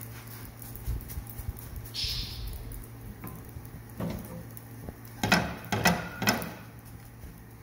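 A slotted metal spatula knocking and scraping against a nonstick frying pan as a chapati is turned, with three or four loud clatters close together about five to six and a half seconds in, and a single knock a little earlier.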